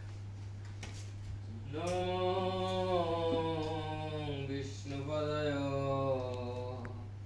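A male voice singing two long held notes of a devotional chant, the first starting about two seconds in and the second after a short break, each sliding slightly down in pitch, over a steady low hum.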